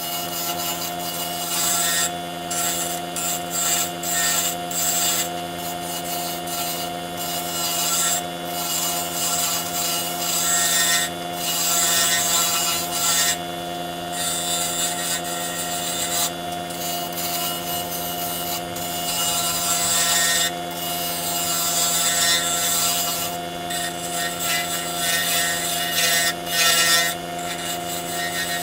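Small wood lathe motor humming steadily while a hand-held turning tool cuts a spinning zebrano pen blank, a rough scraping hiss that comes and goes with each pass of the tool. This is the blank being roughed down, taking off the bulk before final shaping.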